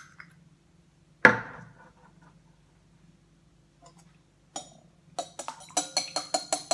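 A sharp knock on a glass mixing bowl about a second in, as an egg is cracked, then from about five seconds in raw eggs being beaten in the glass bowl: a quick, steady run of clinks of the utensil against the glass.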